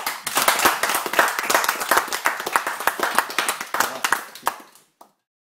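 A small group clapping, thinning out after about four seconds and then cut off to silence.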